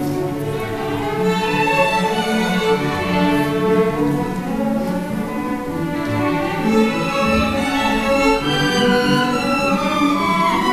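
School string orchestra playing: violins, cellos and double basses bowing held notes together in flowing phrases.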